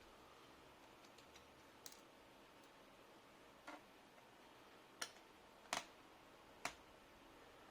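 A handful of light, sharp clicks and taps from a small screwdriver and small laptop parts being handled, spaced irregularly over near silence, with the loudest ones in the second half.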